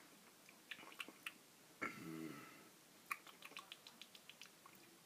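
Near silence with faint small clicks, and about two seconds in a short low hummed 'mm' from a man tasting a mouthful of wheat beer.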